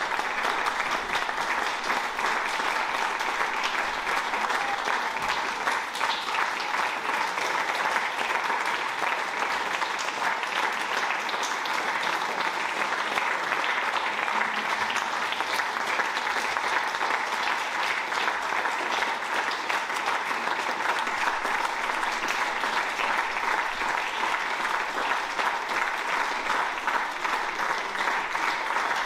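Audience and performers applauding in a hall: sustained, steady clapping by many people.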